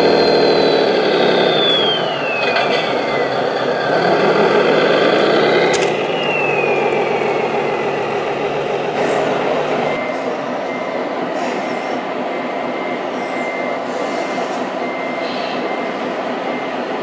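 Radio-controlled model truck driving, its motor whine and simulated engine sound falling in pitch twice as it slows. After about ten seconds this gives way to a steadier mix of model truck noise with a run of short, evenly spaced high beeps.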